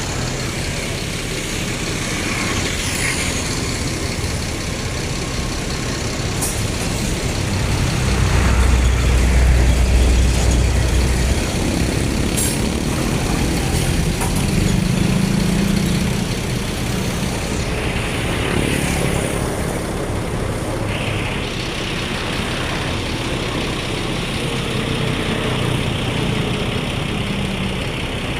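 Heavy vehicle engine running steadily, with a deep rumble that swells for a few seconds about a third of the way in, and a few short clicks.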